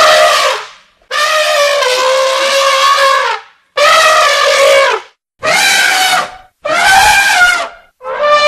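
Elephant trumpeting: a string of about six loud pitched calls, each one to two and a half seconds long, with short silent gaps between them.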